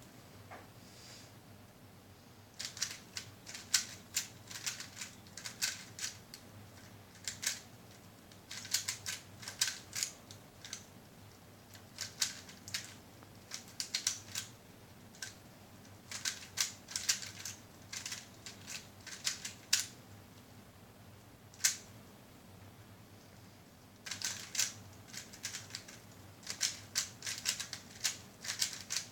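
Plastic 3x3 Rubik's cube layers clicking as they are turned, in quick flurries of turns broken by pauses of a second or two, with one lone click about two thirds of the way in.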